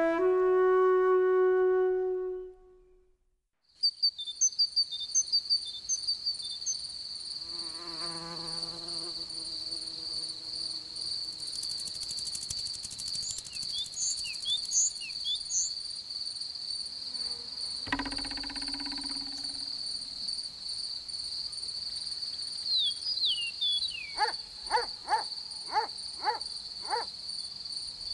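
A flute melody falls and ends about two seconds in. After a moment of silence a steady, high insect chirring like crickets starts and runs on, with short high chirps over it, a brief wavering buzz, and a run of sharp ticks near the end.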